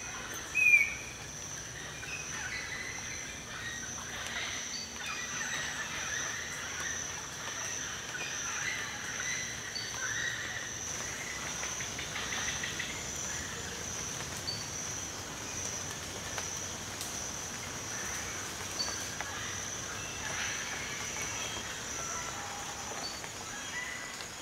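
Tropical forest ambience: a steady high-pitched insect drone with scattered bird chirps, and one loud short call about a second in.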